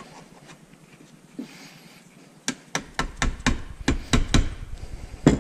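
A hammer tapping a putty knife into the sealed seam of a Tesla Model S DC/DC converter's metal housing, driving the blade in to cut the adhesive. About a dozen quick strikes, roughly four a second, starting about halfway in, with the last strike the loudest.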